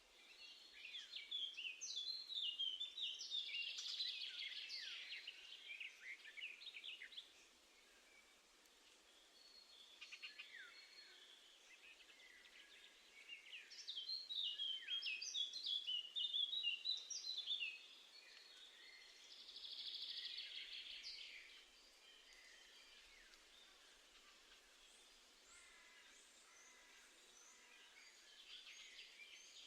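Garden songbirds singing outdoors: long phrases of rapid, high chirping notes about a second in and again about thirteen seconds in, a shorter phrase around twenty seconds, then only faint calls.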